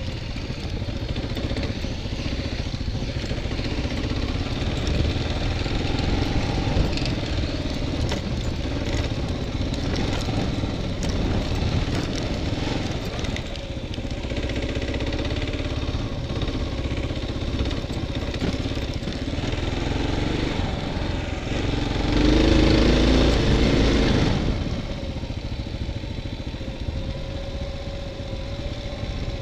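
Dual-sport motorcycle running steadily as it is ridden, heard from the bike itself. It grows louder for about two seconds roughly three quarters of the way through.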